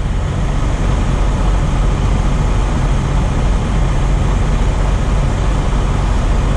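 Freightliner Cascadia semi truck's diesel engine running, a steady low hum under an even rushing noise that does not change.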